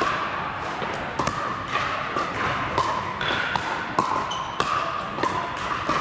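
Pickleball paddles striking the plastic ball: sharp pops about every half second, overlapping from several courts in a large indoor hall.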